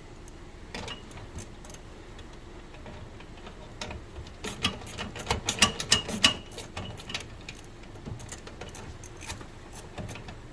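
Sharp metallic clicks and clinks from working the parts of a mailbox lock by hand, a scattered few at first, then a quick, louder run of clicks a little past the middle.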